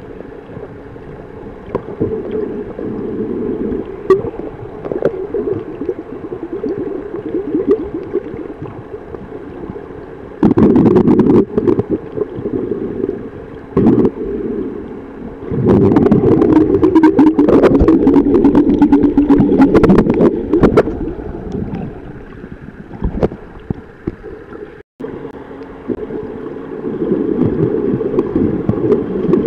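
Muffled underwater water noise: low gurgling and rumbling, swelling louder about a third of the way in and again through the middle, where a low steady hum sounds for a few seconds. The sound cuts out for an instant about four-fifths of the way in.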